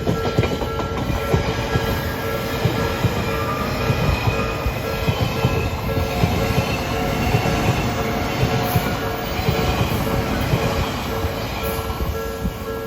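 Odakyu Line electric train running through a level crossing: a loud, even rumble of wheels on rail with a quick, irregular clatter of knocks. Steady tones from the crossing's warning alarm sound over it.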